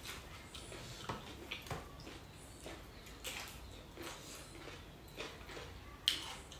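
Quiet eating sounds: scattered small clicks of a spoon against a bowl and of chewing, with one sharper click about six seconds in.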